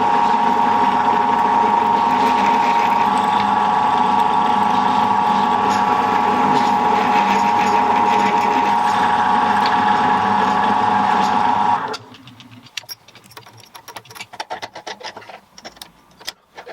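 Milling machine running with a steady high tone while drilling holes in a block of EN3 steel. About twelve seconds in the machine stops, leaving only faint clicks and light knocks.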